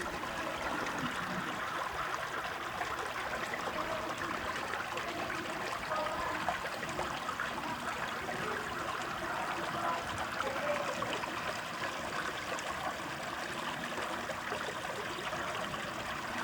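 Running water of a small stream trickling and flowing steadily.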